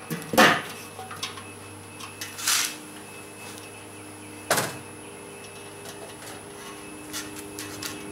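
Steel lid of a Weber kettle grill set down on the bowl with a metal clank about half a second in, followed by a second knock a few seconds later and light clicks as a probe thermometer's display unit is handled.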